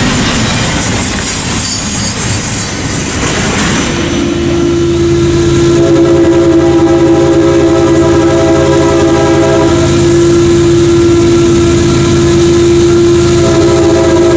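Double-stack intermodal well cars rolling past with wheel rumble and clatter, then, about four seconds in, an approaching CSX freight locomotive's multi-chime air horn sounding one long, steady chord to the end, its upper notes thinning briefly about two-thirds of the way through.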